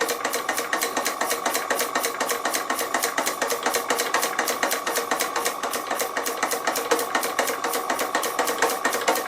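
Doll 347/3 toy stationary steam engine running steadily on compressed air, its exhaust beating evenly at about six beats a second over a steady hiss and whine.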